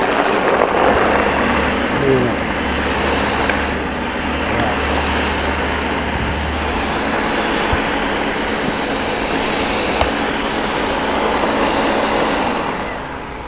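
Countertop blender running steadily, grinding coconut (dreadnut) with water into fresh coconut milk for a stew. The sound dies away near the end as the motor stops.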